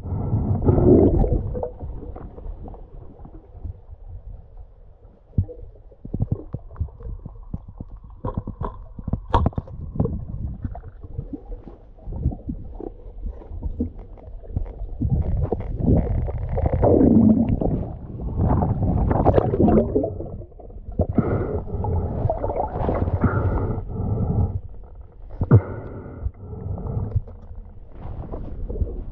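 Muffled underwater sound picked up by a submerged action camera: low, uneven rumbling and gurgling of moving water and bubbles, swelling louder in the second half, with scattered knocks.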